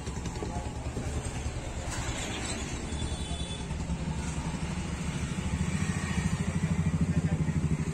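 An engine running steadily with a low, rapid pulse, getting louder over the last few seconds.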